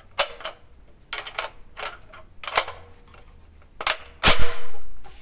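Metallic clicks and clacks of a SAFN 49 rifle's action being worked by hand, then one loud bang about four seconds in that rings on briefly in the range.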